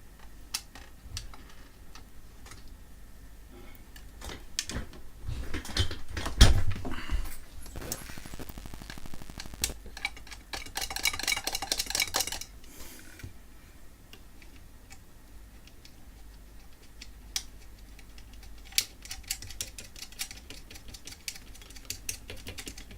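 Small metal parts clicking and knocking as nuts are fitted onto threaded studs during reassembly of a UPS, with a loud knock about six and a half seconds in and a quick run of rattling ticks a few seconds later.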